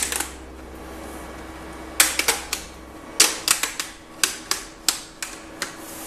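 Plastic snap clips of a Dell Inspiron 15 5000-series laptop's front screen bezel popping loose as the bezel is pried off by hand. There is a single sharp click at the start, then from about two seconds in an irregular run of a dozen or more sharp clicks and snaps.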